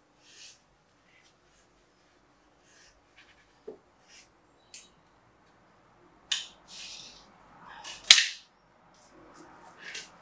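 Scattered quiet rustles, taps and scrapes of pasted wallpaper being handled and worked against a wall. Two louder rustles come about six and eight seconds in, the second the loudest.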